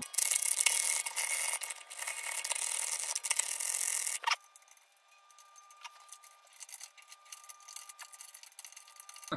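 Fast-forwarded sound of the tuning machines on a nylon-string classical guitar being turned to unwind and take off the strings, sped up so it is thin and high with no low end. It is loud for about four seconds, then drops suddenly to a much fainter scratchy texture with a faint steady tone.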